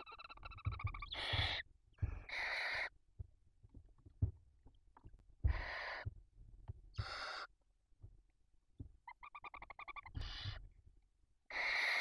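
Barn owl owlets in the nest hissing: about six rasping, half-second hisses, their begging calls. At the start and again near the end come stuttering, pitched chirruping calls, with soft bumps of the birds shifting on the nest below.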